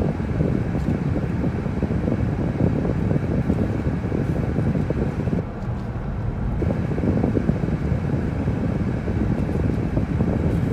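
Road and engine noise heard inside a moving car's cabin: a steady low rumble, with the higher hiss briefly thinning about halfway through.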